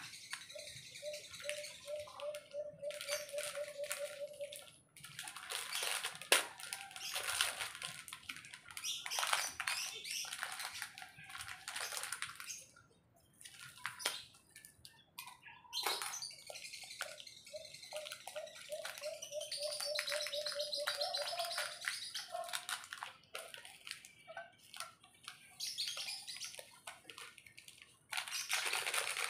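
Water heating on small camp stoves, an irregular hiss and bubbling that swells and fades. Twice, for a few seconds, there is a rapid pulsing call. Near the end a louder crinkling rustle is heard as a coffee sachet is handled.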